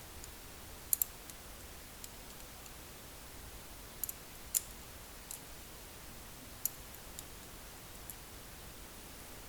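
Sharp, small metal clicks, a handful spread out singly and in pairs: lock springs and pins being removed from an American Lock 1106 padlock's cylinder and set down.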